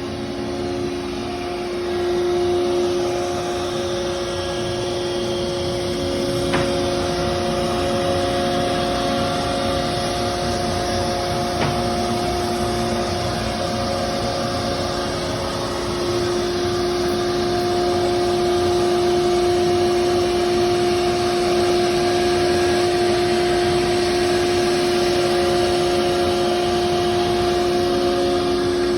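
CNC router running and cutting a door: a steady whine of several held notes that drop out and return, over an even rushing cutting noise.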